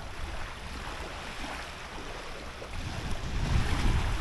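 Gusty wind buffeting the microphone, with waves washing on the water; the low rumble of a gust swells near the end.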